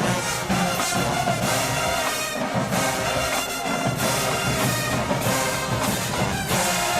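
An HBCU marching band's brass section playing full out, with the tubas carrying a strong, prominent low part under the horns.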